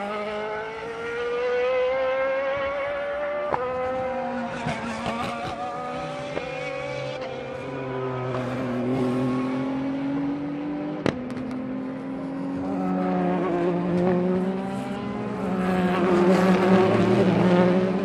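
Endurance race cars accelerating past one after another. Their engine notes climb in pitch and step back down at each upshift. There is a sharp crack about eleven seconds in, and the loudest pass comes near the end as a pair of GT cars goes by.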